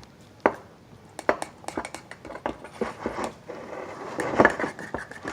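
A kitchen utensil knocking and scraping against a bowl in irregular clicks, with a busier run of knocks about four seconds in, as a melted-candy mixture is worked.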